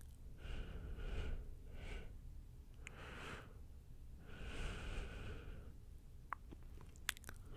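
Soft breathy sounds from a person's mouth close to the microphone: four breaths or whispers, the longest about a second and a half, followed by a few light clicks near the end.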